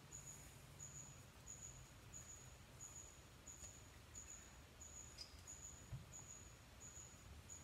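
Near silence, with a faint, regular high chirping a little under twice a second, like a cricket, over a low hum. A small click and a soft knock come about five to six seconds in, as small parts are handled.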